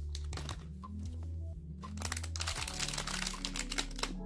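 Small plastic LEGO parts bag crinkling as hands handle it and pull it open: dense crackles in spells, thickest in the second half. Low background music runs underneath.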